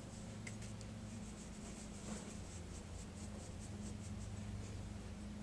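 Faint, soft scratchy strokes of a MAC 168 angled makeup brush sweeping blush across the cheek, repeated many times, over a steady low hum.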